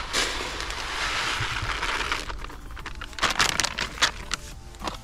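Fishing pellets poured from a packet into a plastic bowl: a dense rushing rattle for about two seconds, then scattered clicks and rustles as the pouring stops.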